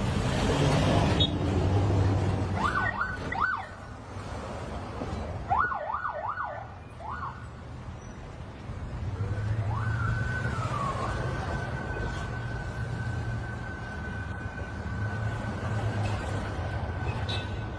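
Vehicle sirens in a convoy of pickup trucks. Quick rising-and-falling whoops come in two short runs during the first seven seconds, then a long steady wail starts about ten seconds in and falls away near the end, over the low rumble of engines. The first second is a loud rush of noise.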